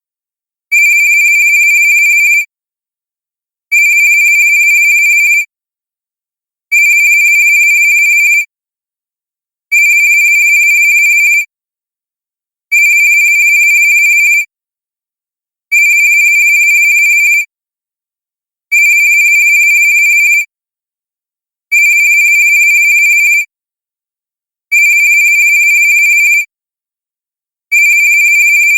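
Cartoon cell phone ringtone: a steady, high electronic tone sounding in rings of under two seconds, repeating every three seconds, about ten times.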